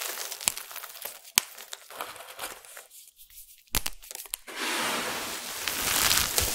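Crushed soap pieces dusted with starch crunching and crinkling under the hands, with a few sharp cracks in the first two seconds. After a short pause around three seconds, a steady dry rustle begins at about four and a half seconds as handfuls are poured back onto the pile.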